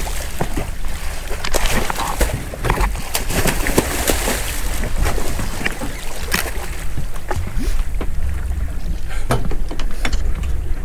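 Water splashing and rushing around a large bluefin tuna held alongside a boat while it is revived, with many short splashes over a steady low rumble.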